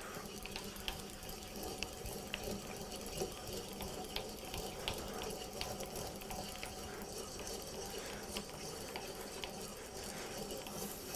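Sandpaper rubbed back and forth by hand on the plane under construction: a steady scratchy hiss with small ticks scattered through it, a long sanding run toward a smooth finish.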